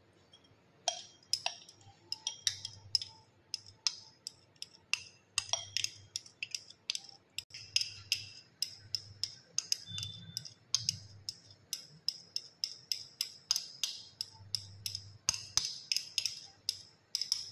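A glass rod tapping and scraping against the inside of a glass beaker, a quick run of sharp clinks and ticks, about three a second, as wet casein curd is scraped out of the beaker.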